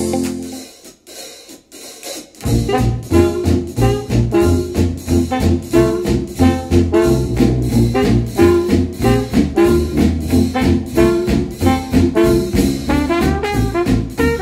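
Music played back through a pair of Wharfedale bookshelf speakers driven by a Cambridge Audio AXA25 amplifier. An electronic pop track fades out in the first second, and after a short pause a retro jazz tune with brass and drums starts about two seconds in.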